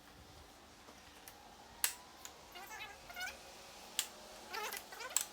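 A plastic grille insert being pressed into a plastic grille shell: several sharp clicks as the clips snap home, with short squeaks from the plastic parts rubbing together.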